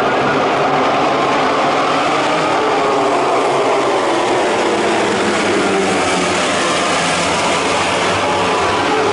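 A pack of racing motorcycles running at high revs past the grandstand, many engine notes overlapping in a loud, steady wall of sound, their pitches shifting as the bikes go by.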